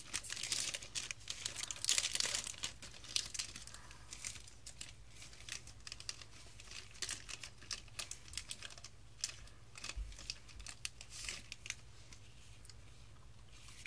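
Foil booster-pack wrapper crinkling as trading cards are pulled out of it. After a few seconds it gives way to sparser soft clicks and rustles of the cards being fanned and sorted by hand, thinning out near the end.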